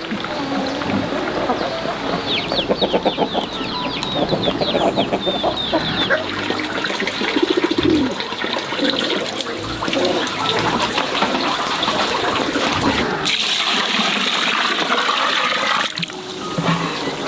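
Chickens clucking, with a run of quick high chirps a couple of seconds in, over a steady rushing noise.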